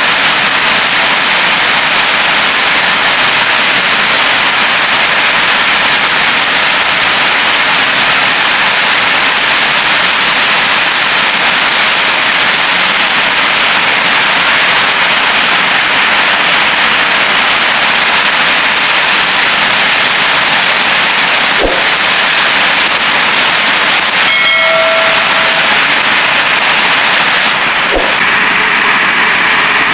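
Heavy rain falling steadily, a loud, even hiss. A brief pitched sound cuts through about three-quarters of the way in.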